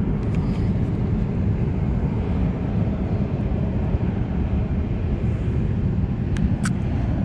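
Wind buffeting the microphone: a steady, low rumbling roar. A few faint clicks come near the start and again near the end.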